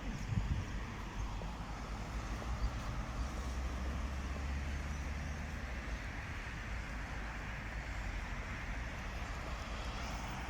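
Road traffic: a motor vehicle's engine running with a steady low rumble and tyre and road noise.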